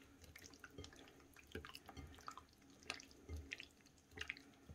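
Faint, scattered wet squelches and small clicks of raw chicken breast pieces being mixed by hand in teriyaki marinade.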